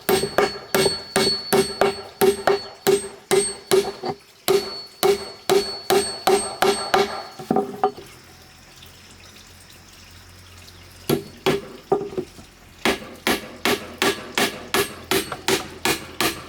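Rhythmic hammering, about three blows a second, each with a short ringing tone. The blows stop for about three seconds partway through, then resume.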